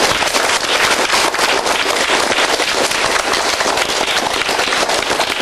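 Applause from a group of schoolchildren, many hands clapping together in a dense, steady patter.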